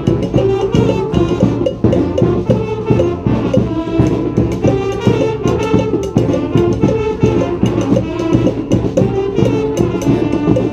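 Brass street band with drums playing a salsa tune live: horns carrying the melody over a steady, busy percussion rhythm.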